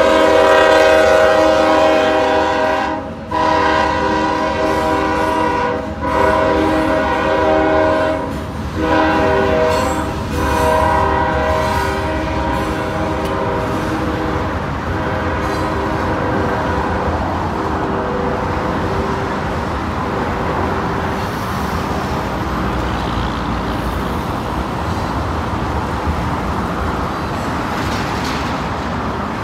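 Ferromex freight locomotive's air horn sounding a loud chord in several long blasts separated by short gaps. About halfway through the horn fades away, leaving a steady rumble of the passing train and road traffic.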